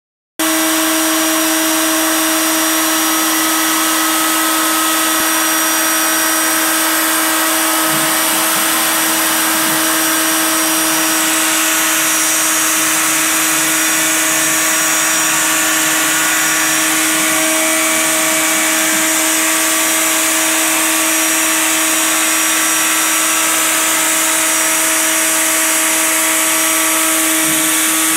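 CNC router spindle running a single-flute 1/8-inch high-helix end mill through quarter-inch black ABS sheet at a fairly low spindle speed and a 40 inch-per-minute feed. A steady whine over a bright hiss of cutting.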